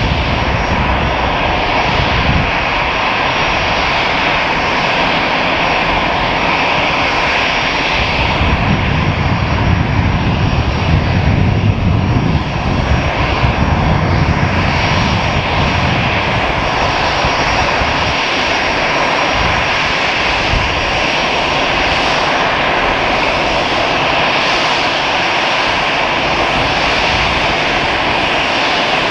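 Airbus A318 airliner's jet engines running: a loud, steady jet noise with a faint whine, and a deeper rumble that swells for several seconds in the middle.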